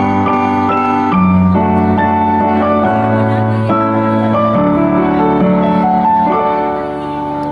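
Instrumental break of a slow ballad played on electronic keyboards with a piano sound: held chords under a slow melody, a little softer near the end.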